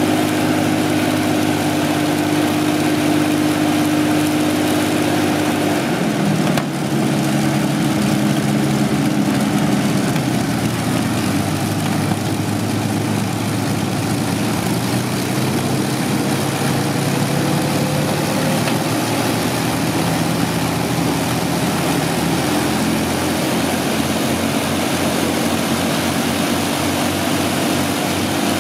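Rolls-Royce Merlin V12 aero engines running on ground test stands with their propellers turning. The engine note is steady, shifts to a different speed about six seconds in and again about eleven seconds in, and a faint rising whine comes in around the middle.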